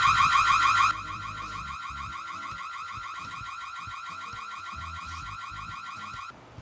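Ring Stick Up Cam's built-in siren sounding, a piercing electronic alarm of rapid, repeating upward sweeps. The meter beside it reads about 82 dB. It drops sharply in level about a second in and cuts off just before the end.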